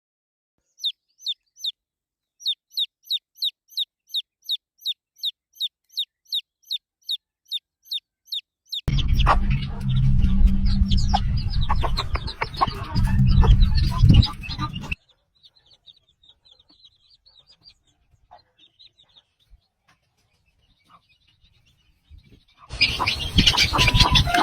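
A chick peeping: a steady string of short, high, falling peeps, about two or three a second. At about nine seconds it gives way to a loud, rough stretch of chicken sounds over a heavy low rumble. After that come faint peeps, and near the end another loud, rough stretch.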